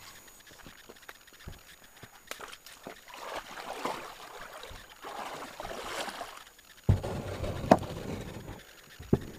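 Kayak paddle strokes in the water, with sloshing and dripping and the light knock of the paddle, in two swells. About seven seconds in, a louder low rumble of wind on the microphone cuts in, with a few sharp knocks.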